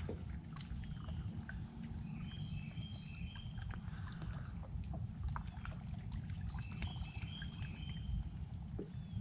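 Open-air lake ambience from a boat: a steady low rumble, with a bird calling in short high chirps in two bursts, about two seconds in and again about seven seconds in, and a few faint clicks.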